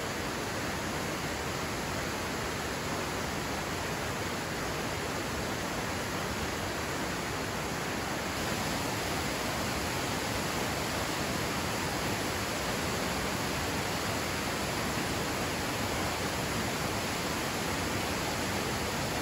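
Steady, even rush of a waterfall plunging into its pool.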